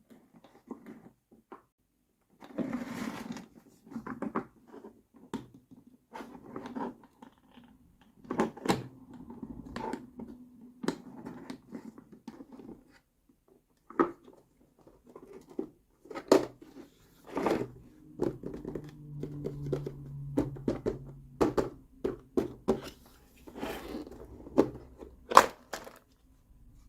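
Small plastic toy kitchen pieces being handled and set down, giving a string of irregular clicks, taps and knocks with rustling in between. A faint low hum runs for a few seconds just past the middle.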